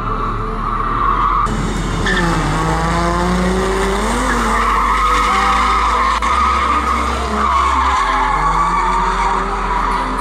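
V6 Ford Mustang drifting: tyres squealing steadily while the engine revs drop and climb again a couple of seconds in, then hold.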